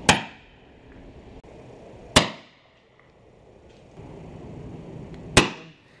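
Three sharp cracks, the first at the start, the next about two seconds later and the last about three seconds after that, each dying away within half a second, over a low steady hiss.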